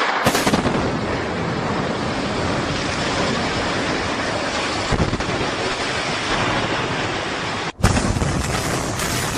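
Building demolition: a sudden blast, then a long, loud rumble of the structure coming down. Near the end it cuts off abruptly and another loud rumble starts at once.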